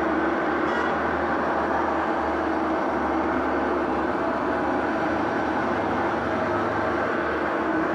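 Washing machine drum on its spin cycle, running at a steady speed with a constant hum and whirr.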